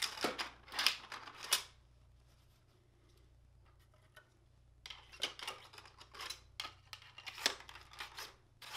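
Ramrod scraping and clicking against the 3D-printed plastic barrel of a spring-powered foam-dart musket as it is drawn out and then shoved down the barrel to prime and load. Two spells of quick scrapes and clicks, about three seconds apart.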